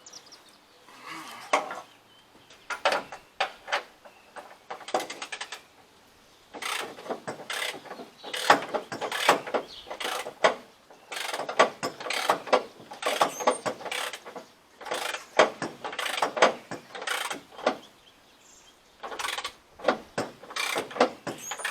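Ratchet of a click-type torque wrench with a 24 mm socket on an extension, cranked on a crane base bolt in repeated bursts of quick clicking strokes, with a short pause near the end.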